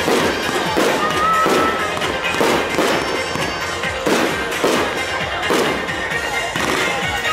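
Aerial fireworks shells bursting in quick succession, a sharp bang about every second, over music.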